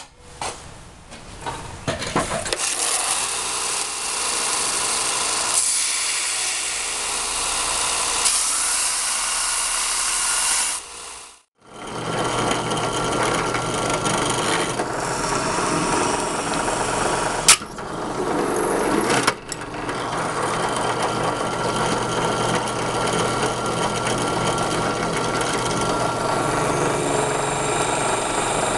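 4x36 belt sander running with a cable Damascus steel knife blade ground against the belt to knock off the forge scale and rough-grind it: a steady rasping hiss over the motor's hum. It stops abruptly about 11 seconds in and starts again a moment later.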